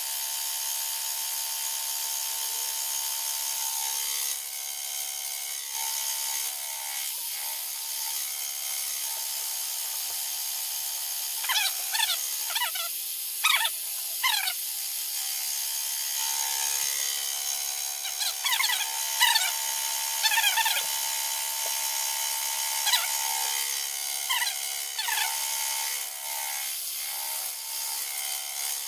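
Grizzly mini mill running with a flycutter held in a 3D-printed PLA MT3 collet, facing aluminum: a steady spindle whine, broken by several short, louder screeches whose pitch wavers, in the middle and later on.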